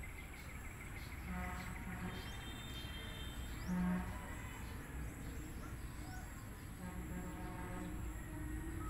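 Outdoor ambience: a steady high insect drone with scattered short bird chirps, and a few faint, brief pitched sounds low down, like distant voices, the strongest about four seconds in.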